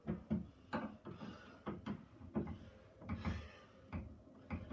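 Irregular knocks and clunks of stabilizer hardware being handled and fitted on a kayak, about a dozen over a few seconds, with light rustling between them.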